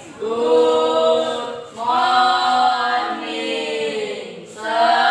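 A group of voices singing unaccompanied, in long held notes over three phrases.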